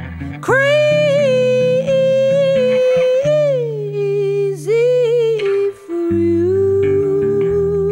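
Pop song with a wordless sung or hummed vocal line over guitar and bass. The voice comes in about half a second in on a long held high note, slides down to a lower note and holds it.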